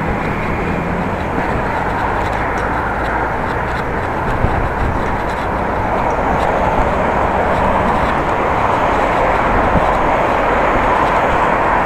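Steady rush of road traffic and riding noise heard from a moving bicycle beside a ring road, growing a little louder toward the end.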